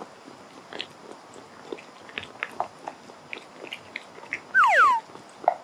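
A cat eating soft food from a plastic bowl: scattered quiet clicks and smacks of chewing and lapping. About four and a half seconds in, a loud falling whistle-like tone lasts about half a second.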